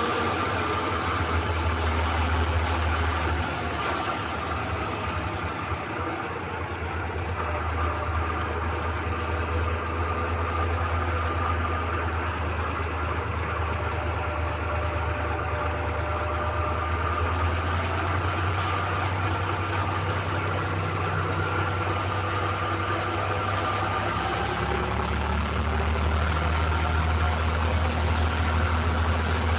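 Torpedo 4506 tractor's diesel engine running with a steady low drone, heard from inside the cab as it drives along.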